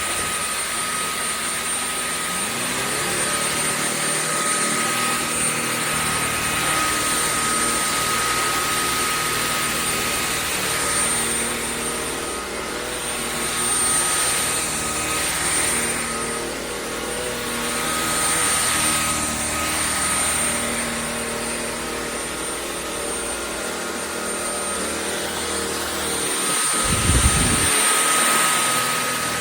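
Shark cordless stick vacuum running steadily, a motor whine over airflow hiss. There is a brief low thump near the end.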